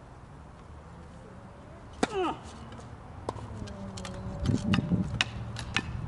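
Tennis rally on a hard court: several sharp ball strikes and bounces, with wheelchair wheels rolling on the court. A short falling squeak comes about two seconds in.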